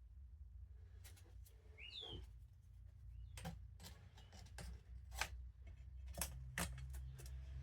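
Scattered light clicks and taps of parts and tools being handled, over a steady low hum, with a short high chirp about two seconds in.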